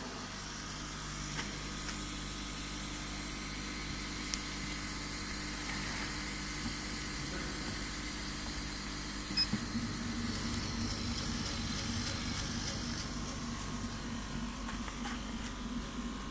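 Kamach 1290 laser cutting machine running: a steady mechanical hum and hiss of its fans and pumps, with a thin high whine and a low hum, and a few faint ticks.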